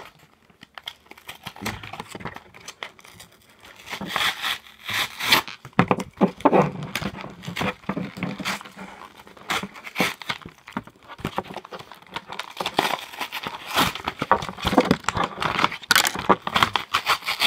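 Clear plastic blister packaging and cardboard backing of a Pokémon card pack crinkling and tearing as it is worked open by hand, in irregular crackles.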